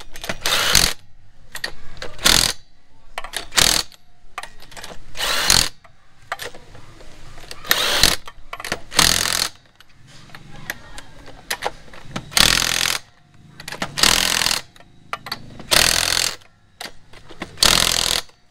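Cordless impact wrench hammering on wheel lug nuts in about ten short bursts with brief pauses between, nut after nut, tightening the wheel back on after the brake job.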